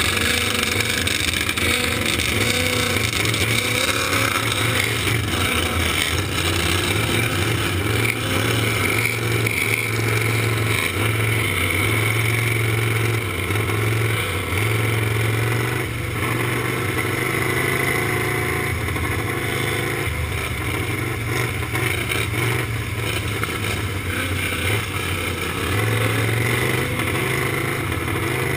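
Racing lawn mower engine running hard, heard from the mower itself, rising and falling in pitch as the throttle opens and closes, with the engines of other racing mowers around it.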